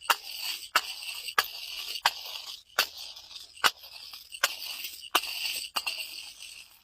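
A run of about nine sharp cracks, roughly one every two-thirds of a second, with a crackling hiss between them: brittle things being broken or crushed.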